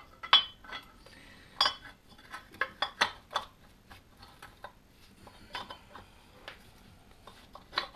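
Light metal clinks and taps of bolts and the water pump housing being handled and seated against a Land Rover TD5 engine: a string of scattered sharp ticks, the loudest about a third of a second in, with others around one and a half and three seconds in.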